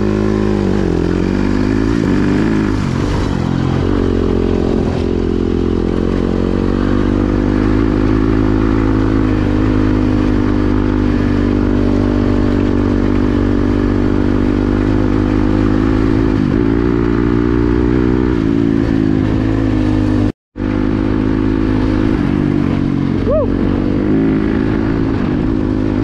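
Yamaha dirt bike engine running steadily under way, its pitch rising and falling a little with the throttle. The sound cuts out completely for a moment about twenty seconds in.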